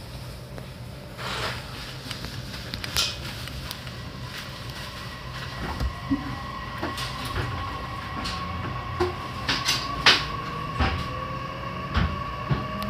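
Interior of a moving electric train: a steady low rumble with scattered sharp clicks and knocks, the loudest about ten seconds in. A steady whine comes in around the middle, and over the last few seconds a second whine rises slowly in pitch as the train gathers speed.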